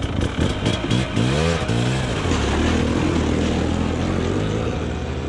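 Snowbike engine revving, its pitch swinging up and down a few times over the first couple of seconds, then running at a steady speed.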